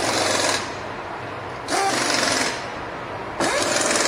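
Pneumatic impact tool hammering in short bursts, three of them under a second each and about a second and a half apart.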